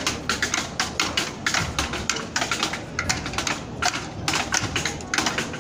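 A rapid, uneven run of sharp taps or clicks, several a second.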